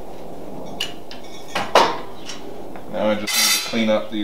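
Metal caster wheels handled and set down on a board: a few separate clinks and knocks, the loudest a little under two seconds in. Acoustic guitar music comes in near the end.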